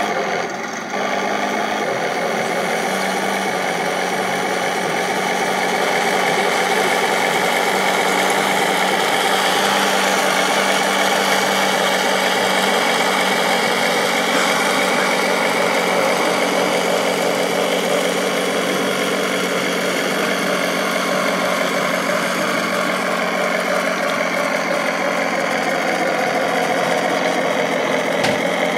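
Radio-controlled scale model KV-1 tank running, giving a steady, unbroken engine-like drone.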